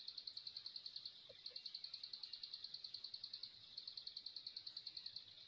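Faint, rapid, high-pitched pulsed trill of an insect, about ten pulses a second, broken by two short pauses.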